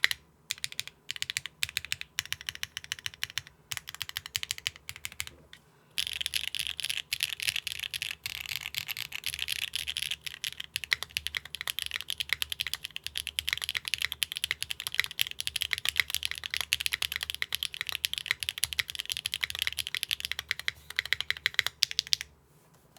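Neo65 mechanical keyboard with HMX Catmint switches, a carbon fibre plate, no foam and GMK keycaps being typed on. A few scattered keystrokes come first, then fast continuous typing from about six seconds in, stopping shortly before the end.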